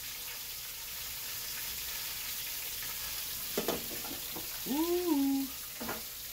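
Steady high sizzle of fish frying in hot oil. A short knock comes about three and a half seconds in, and a brief hummed voice sound rises and falls around five seconds in.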